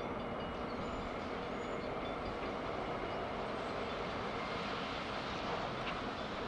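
Diesel freight locomotive approaching on a curve, its engine running with a steady rumble.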